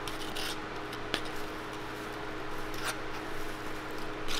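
Metal spatula spreading whipped cream over a waffle: a few short scrapes and clicks, one about a second in, over a steady hum of shop equipment.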